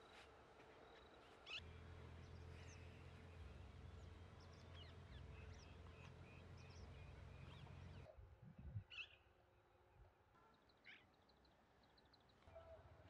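Faint bird chirps over quiet outdoor ambience, with a low steady hum in the first half that stops about eight seconds in.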